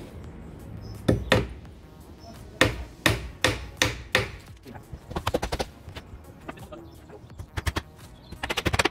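Claw hammer driving nails into timber battens on roof rafters: a run of single hard blows, then quick bursts of lighter taps about five seconds in and again near the end.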